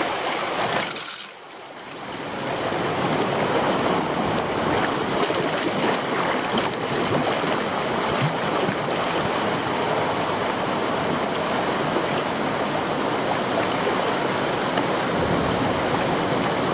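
River rapids rushing and churning around a kayak running a low-water rapid, a steady noise of white water that dips sharply for a moment about a second in.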